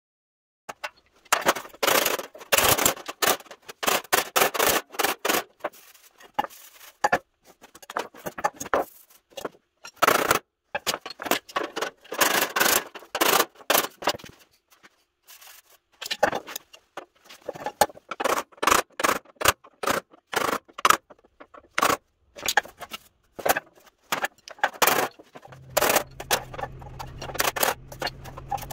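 Body hammer tapping out dents in a steel pickup tailgate: quick runs of light, sharp metal-on-metal blows with a short pause midway. A low steady hum starts near the end.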